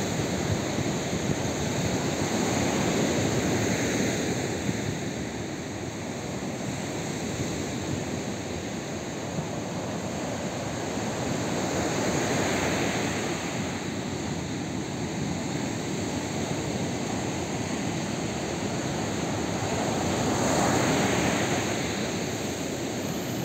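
Sea surf breaking on a sandy beach: a steady rush of waves that swells and fades three times, about nine seconds apart.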